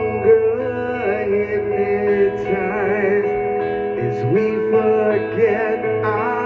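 Live rock band playing a power ballad through the PA, heard from the audience. It is a passage without lyrics, made of long held notes that slide and waver in pitch.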